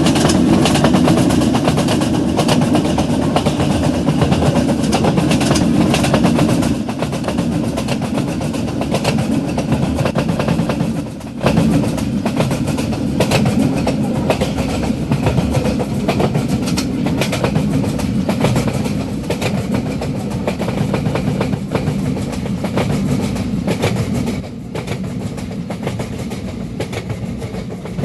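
A train running on the track: a steady rumble with a rapid clatter of wheels over rail joints.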